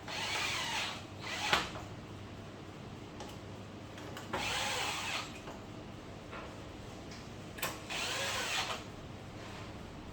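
Small electric screwdriver running in three short bursts about four seconds apart, each lasting about a second.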